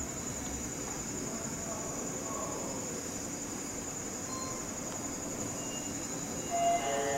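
Steady high-pitched chirring of crickets, with a low hum dying away in the first second and a short tonal sound near the end.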